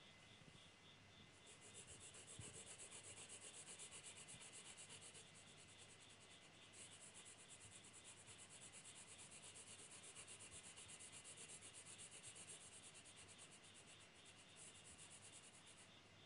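Pencil graphite scratching across drawing paper in faint, rapid back-and-forth hatching strokes, shading a drawing. The strokes break off briefly about two fifths of the way in and again near the end.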